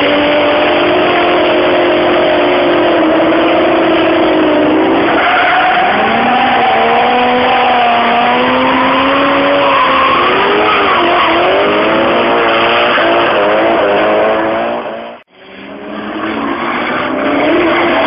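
Drift cars' engines revving up and down over the hiss and squeal of tyres sliding through a corner. The sound cuts out briefly about fifteen seconds in, then comes back.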